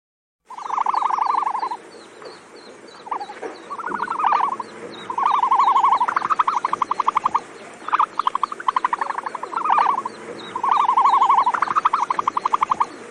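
Ostrich calling: a series of about six loud, fast stuttering trills at a mid pitch, some running on into a string of separate clipped pulses.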